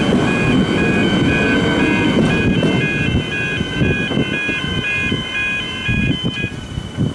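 Railway level crossing warning bells ringing in a steady repeating pattern of about two strokes a second, stopping about a second before the end. Under them, the rumble of an electric suburban train running over the crossing fades after the first two or three seconds.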